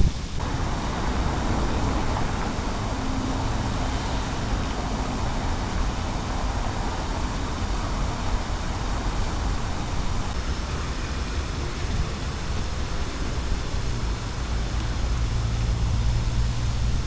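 Steady rush of a tiered fountain's water jets splashing into its stone basin, over a low rumble of road traffic.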